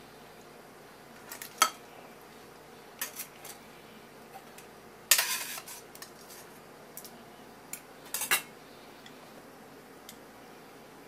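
Cooking chopsticks clicking and clattering against a metal pot and a ceramic plate as pieces of simmered fish head are lifted across. Scattered sharp clicks, often in pairs, with a louder clatter about halfway through.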